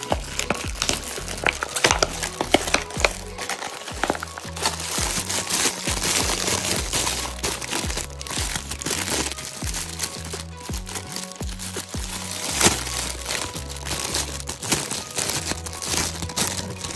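Crinkling and crackling of a foil toy-egg wrapper being torn open, then of a clear plastic bag with a toy inside being handled, over background music.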